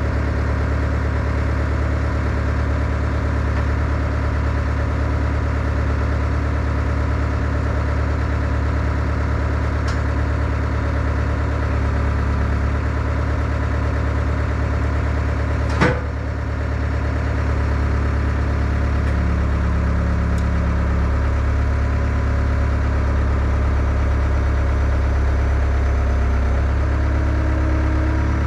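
Skid steer engine running steadily at an even speed, with one sharp clunk about halfway through.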